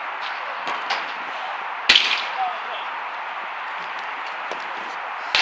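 A football being struck hard twice, sharp loud smacks about three and a half seconds apart, with fainter knocks between. A steady outdoor hiss runs underneath.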